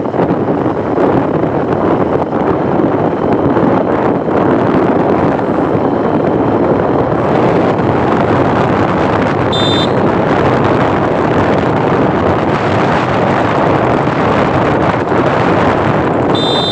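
Passenger train running: a steady, loud rumble and rush of air with wind on the microphone. Two brief high-pitched beeps come about ten seconds in and again near the end.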